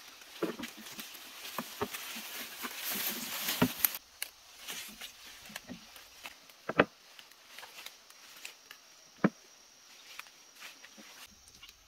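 Leafy undergrowth and ferns rustling and brushing as they are handled and walked through, with scattered footsteps and sharp snaps of stems or twigs, the loudest about seven and nine seconds in.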